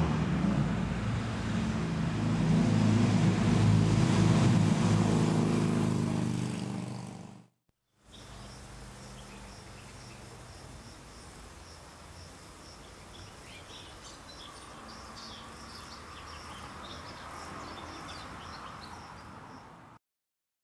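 A motor vehicle's engine running close by with a steady low hum, fading out about seven seconds in. After a brief break it is followed by much quieter outdoor ambience with scattered bird chirps and a high insect drone.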